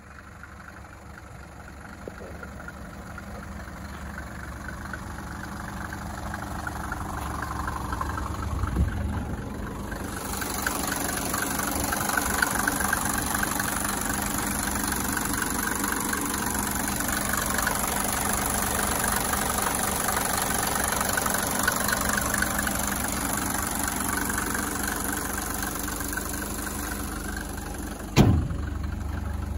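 Mercedes-Benz 350 SD's 3.5-litre turbo-diesel straight-six idling steadily, getting louder over the first ten seconds as the engine bay is approached. Near the end comes a single loud bang, the hood being shut.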